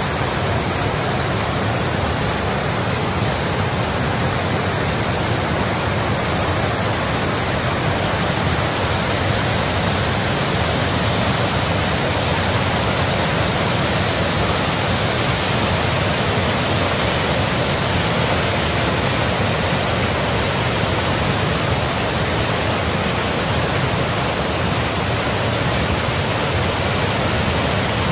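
Mountain river rapids: fast white water rushing and crashing over boulders, a loud, steady, unbroken roar.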